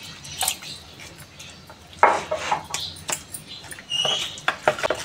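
Metal spoon stirring and scraping a thick semolina and curd batter in a plastic bowl: a run of clicks and scrapes that grows busier from about two seconds in.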